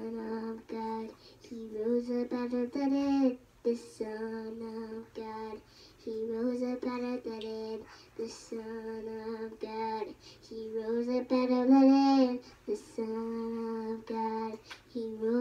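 A young girl singing, in phrases of held notes broken by short pauses.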